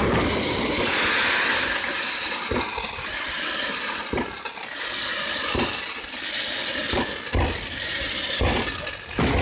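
Fireworks burning with a continuous loud hiss, broken by several sharp bangs about every second and a half.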